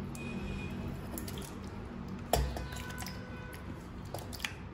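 Soft cooked tomatoes sliding wet out of a pan into a steel mixer-grinder jar, pushed along by a spatula, with small clicks and one sharp knock about two and a half seconds in.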